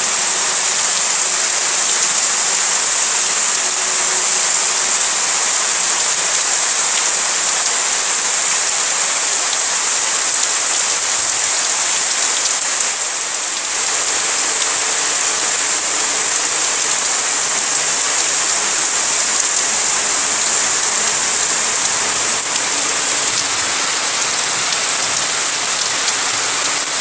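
Heavy rain pouring steadily, an even dense hiss of rain falling on roofs, trees and ground.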